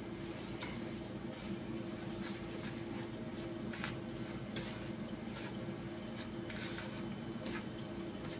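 A hand rubbing and squeezing a crumbly flour mixture in a plastic bowl: soft, irregular scrunching and rustling over a steady low hum.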